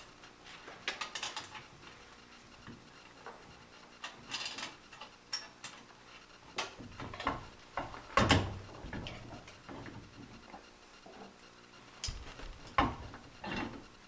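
Irregular metal clanks, knocks and scrapes as an electric motor and its mounting bracket are handled and fitted back into place, with two louder knocks about 8 and 13 seconds in.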